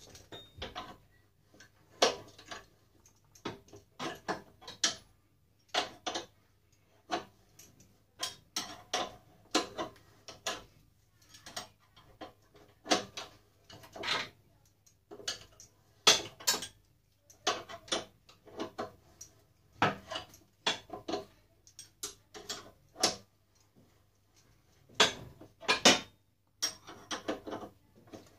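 Steel spanners clinking against the bolts and steel frame of an electric t-shirt heat press as it is unbolted: irregular sharp metallic clicks and taps, singly or in quick clusters.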